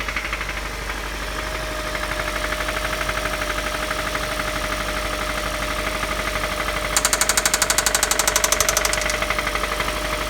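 Engine running with a rhythmic rod knock, about seven knocks a second, from a spun connecting-rod bearing on cylinder 1. The knocking is subdued at first and grows much louder for about two seconds near the end.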